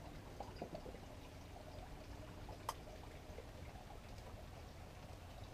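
Faint handling of small plastic acrylic paint bottles on a workbench: soft ticks and one sharp click about two and a half seconds in, over a low steady hum.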